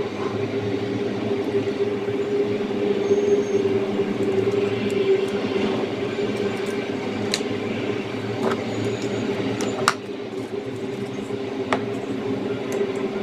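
A steady hum with a held tone, and a few sharp clicks in the second half as a condenser microphone's plastic-and-metal spider shock mount is handled.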